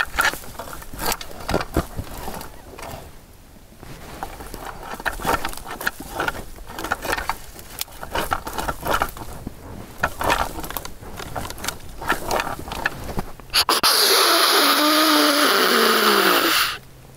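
Rattling antlers clashed and ground together as a buck-fight call: an irregular run of clicks and clatters. About fourteen seconds in comes a loud hiss of nearly three seconds with a falling tone that cuts off suddenly, a deer snort-wheeze call closing the sequence.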